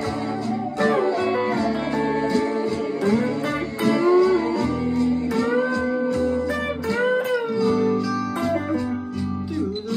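Stratocaster-style electric guitar playing a bluesy lead line, its notes bending up and down in pitch, over a steady bass part.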